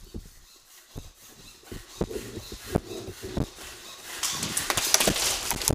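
Footsteps with gear and clothing rustling, then a louder patch of crackly rustling and scraping near the end.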